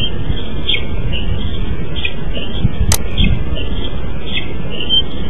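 Steady low rumble of wind on an outdoor nest-cam microphone, with short high chirps every second or so and a single sharp click about three seconds in.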